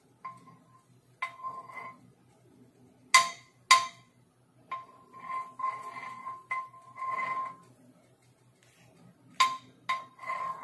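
Metal spoon clinking and scraping against a nonstick frying pan while spreading butter. There are several sharp clinks that ring briefly, a pair about three seconds in and another pair near the end, with softer scraping in between.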